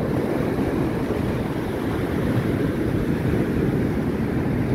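High-tide waves washing up the sand and swirling around the hull of a beached paraw outrigger sailboat: a steady rushing noise.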